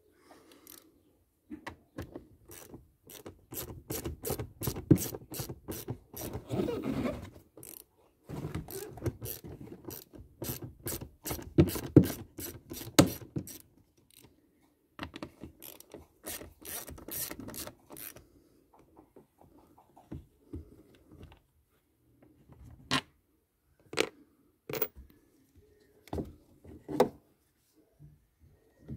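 Socket ratchet clicking as it turns the screws of a van's air filter housing: long runs of quick pawl clicks, then a few separate sharp clicks near the end.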